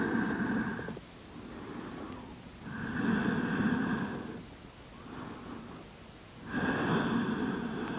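A woman's slow, deep breathing: three longer, louder breaths about three and a half seconds apart, with softer breaths between them.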